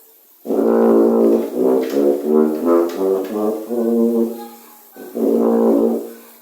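A 4/4 tuba, a large-bore tuba, being played: a run of several detached notes starting about half a second in, a short pause, then another phrase near the end.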